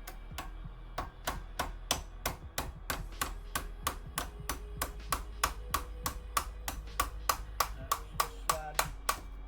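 Steady, rhythmic hammer blows on metal, about three a second, striking a cordless drill's chuck to work it loose.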